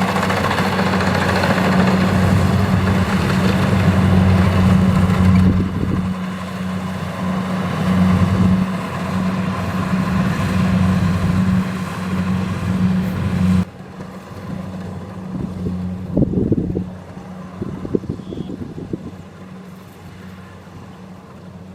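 Kubota DC-70 combine harvester running, a steady engine hum under a loud, wide mechanical rush. About two thirds of the way through the sound drops suddenly to a quieter, more distant run of the same engine, with a few irregular knocks.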